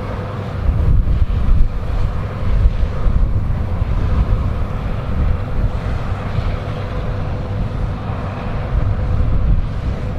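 Combine harvester running while cutting wheat: a steady machine hum over a deep, gusting rumble, with wind buffeting the microphone.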